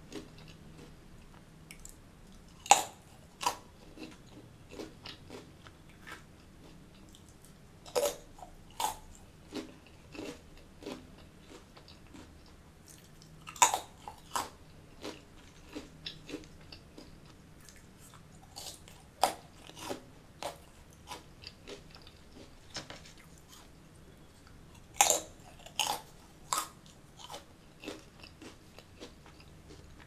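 Crunching bites into crisp soya katori shells, with a loud bite every five or six seconds, each followed by a run of smaller chewing crunches.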